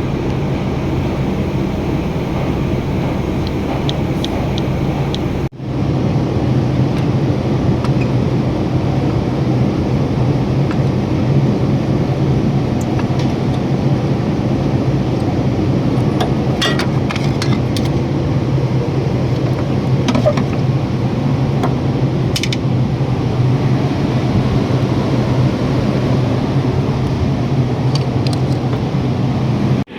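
Steady mechanical drone with a low hum, broken by a brief dropout about five seconds in, with a few light metallic clinks later on.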